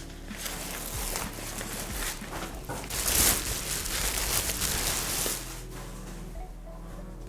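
Clothing being handled: a run of fabric rustling and scraping that is loudest about three seconds in and dies down after about five seconds.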